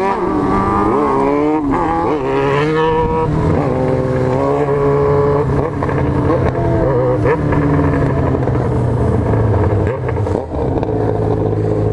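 Yamaha XJ6's 600 cc inline-four engine heard from on the bike, revved up and down in the first few seconds and then held at steadier speeds with small steps in pitch.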